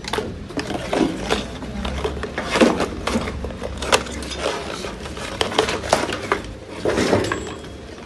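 Irregular clicks and light clatter of microwave-oven circuit boards and wiring being handled and moved about.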